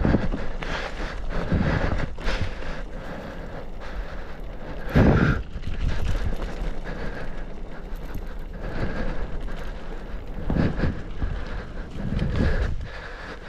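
Bicycle ridden fast down a dirt singletrack: wind buffets the microphone in uneven gusts over tyre noise and the bike rattling across bumps, with one loud jolt about five seconds in.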